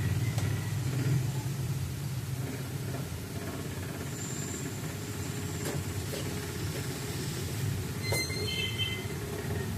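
A steady low mechanical rumble, heavier in the first few seconds, with a few faint clicks and a short cluster of high tones about eight seconds in.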